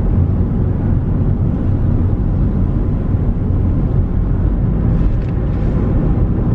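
Steady low rumble of road and engine noise inside the cabin of a moving sports car, which is noisy inside.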